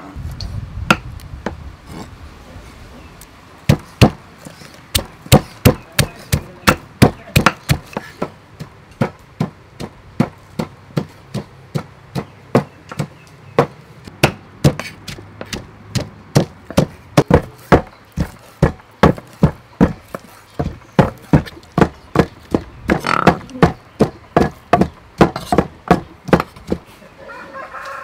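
Steady run of sharp knocks, about two to three a second, starting a few seconds in: a cleaver chopping on a wooden cutting board and a pestle pounding in a mortar.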